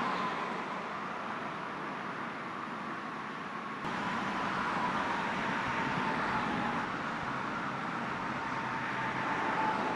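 Steady outdoor road-traffic noise, a constant hum of passing cars with a faint steady high tone, changing in level about four seconds in and again near seven seconds as the footage cuts.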